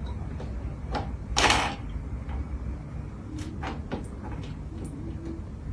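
Small fridge door and handle rattling and knocking as a cat paws and tugs at it, the door not opening. One louder clatter about a second and a half in, then several light clicks.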